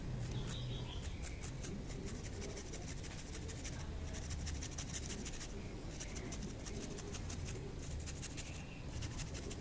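A bar of chocolate being grated on a handheld stainless-steel flat grater: runs of quick scraping strokes with a few short pauses.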